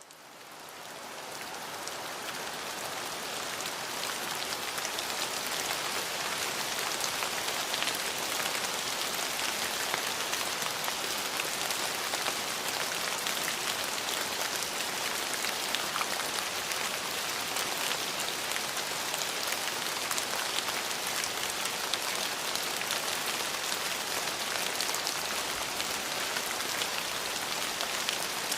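Steady rain falling on a surface, a dense patter of drops, fading in over the first few seconds and then holding even.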